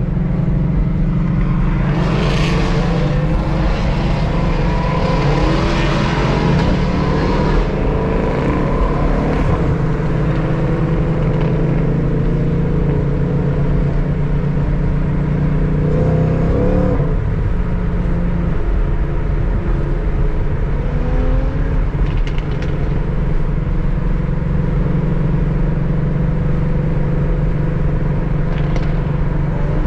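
Ford Mustang's engine and road noise from inside the cabin while driving in traffic: a steady drone whose pitch rises a couple of times as the car accelerates, shifting from second into third gear.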